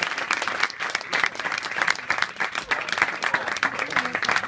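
Club audience applauding after a song, many hands clapping at once, starting to die down near the end.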